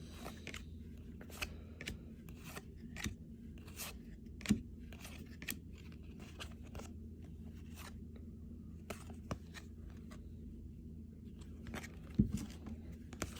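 Trading cards being handled and flipped through by hand: a run of short snaps and clicks of card stock, quick in the first few seconds, then only now and then, over a steady low hum.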